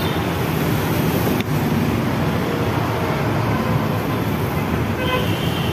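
Steady noise of road traffic from passing vehicles.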